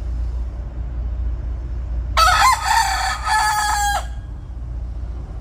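A rooster crowing once, a crow of nearly two seconds starting about two seconds in, over a steady low rumble.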